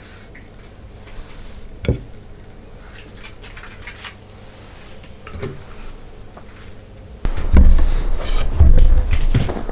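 A dish being handled: one sharp clink about two seconds in as broccoli is set around the fried rice on a ceramic plate, with a few fainter taps. From about seven seconds, loud low rumbling and rustling close to the microphone.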